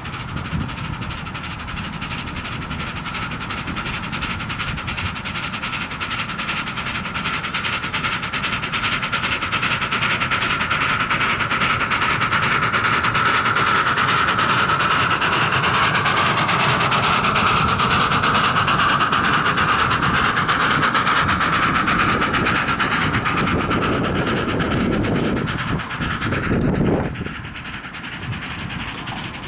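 A 5-inch-gauge live-steam model of a German class 50 (Br 50) steam locomotive running under steam, its exhaust chuffing in a rapid, steady beat. The beat grows louder for the first dozen seconds as the engine comes past, then drops off near the end as it moves away.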